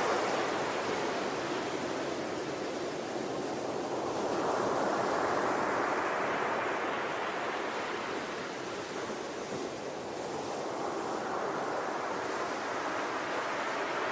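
Sea waves breaking and washing ashore, the surf swelling and ebbing in slow surges a few seconds apart.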